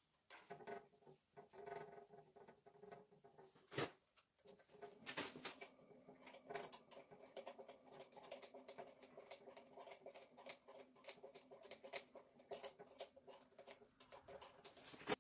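Faint clicking, scraping and tapping of hands and a tool working on the metal parts of a homemade five-cylinder radial engine as it is taken apart, with a sharper knock about four seconds in and another near the end.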